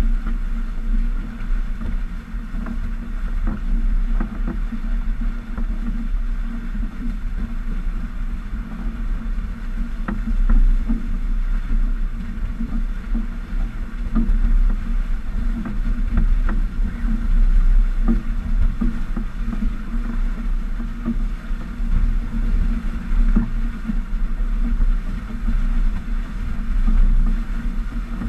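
Water rushing along the hull of a Stiletto 27 catamaran sailing at about 9 to 12 knots, over a steady low rumble of wind on the microphone, with scattered light knocks.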